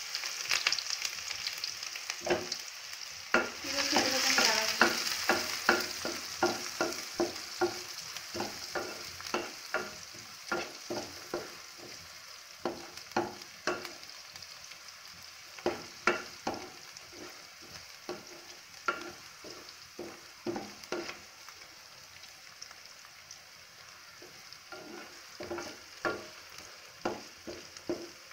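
Chopped red onion sizzling in hot oil with cumin seeds in a metal pan, stirred with a wooden spatula that knocks and scrapes against the pan about once or twice a second. The sizzle is loudest in the first few seconds and gradually dies down.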